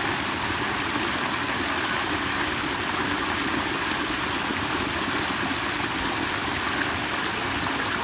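A small stream rushing steadily as it pours over rocks in a little cascade.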